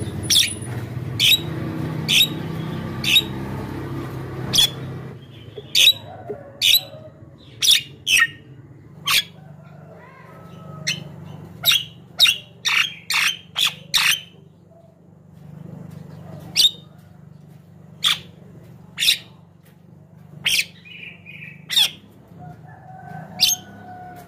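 Javan myna calling: a long series of short, sharp calls, roughly one a second, quickening into a rapid run of calls about twelve seconds in.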